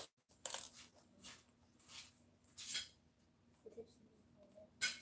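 Light clinking and clicking of rhinestone trim and a plastic clock case being handled: about six separate taps, the loudest one near the end.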